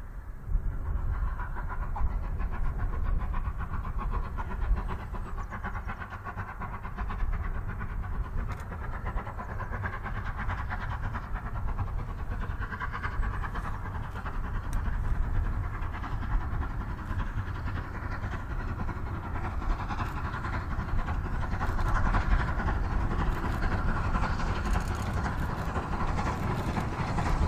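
Steam locomotive working hard at the head of a train, heard at a distance as it approaches, growing louder near the end.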